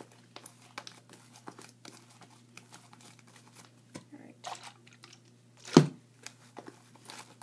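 Sticky, foamy slime being kneaded and pulled by hand: a run of soft crackling, popping clicks, with one louder thump about three-quarters of the way through.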